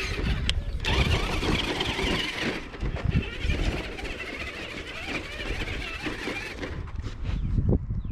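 Electric motor and gears of an RC scale crawler whining, the pitch wavering as the throttle changes, over a low rumble as it drives on dirt. The whine stops about six and a half seconds in, and a few short knocks follow.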